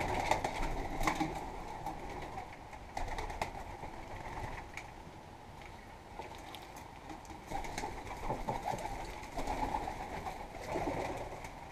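Domestic pigeons cooing softly, mostly in the second half, with scattered light clicks and taps.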